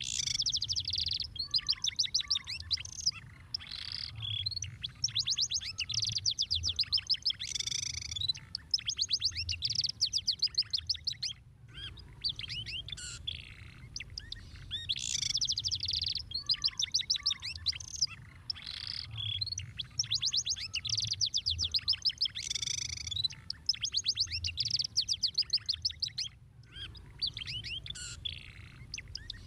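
Domestic canary singing: fast rolling trills of rapidly repeated high notes and chirps, delivered in phrases of a few seconds. The song cuts off abruptly twice for a moment, and a faint low hum runs beneath it.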